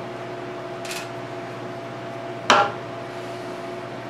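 A small tubing cutter on 3/8-inch copper pipe being handled and clamped: a faint scrape about a second in, then one sharp metallic clack with a short ring, over a steady background hum.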